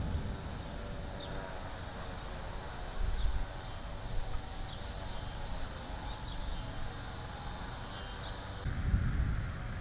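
Outdoor ambience under a building thunderstorm: birds chirping now and then over a steady background hiss. Two brief low rumbles come about three seconds in and again near the end.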